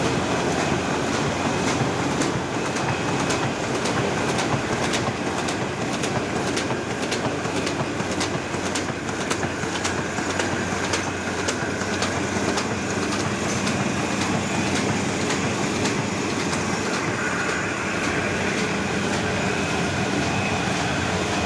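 Heidelberg Speedmaster 52 sheetfed offset printing press running, a steady mechanical clatter with a regular clicking rhythm.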